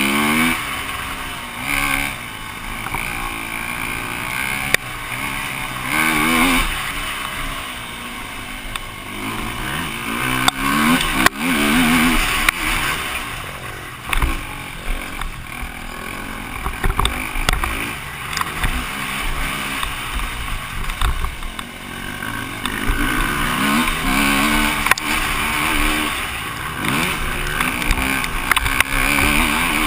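KTM EXC-F 250 single-cylinder four-stroke dirt bike engine revving up and dropping back over and over as the bike accelerates, shifts and slows through the track, with wind rushing over the helmet-mounted microphone and a few sharp knocks as the bike hits bumps.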